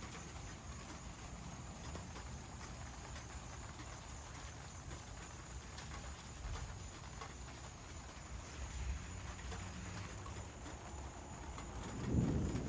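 Heavy rain falling, with many fine drips and taps pattering. A deep rumble of thunder swells up near the end.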